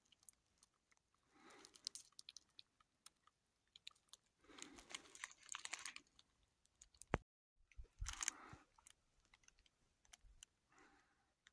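Near silence broken by a few faint crunching bursts of footsteps on a gravel and rock trail, with a single sharp click about seven seconds in.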